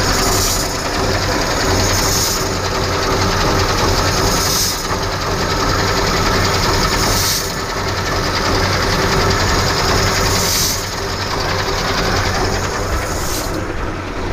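KamAZ truck's diesel engine running steadily, with about six short bursts of air hiss every two to three seconds: the truck's air pressure regulator venting ('sneezing').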